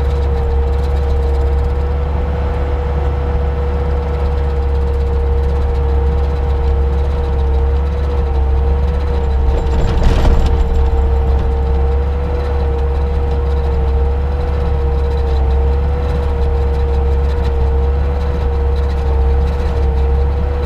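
Bobcat T300 track loader's diesel engine running hard while its SG60 stump grinder attachment cuts into a stump, with a low steady drone and a steady whine. A brief louder surge about ten seconds in as the grinder wheel takes a bite.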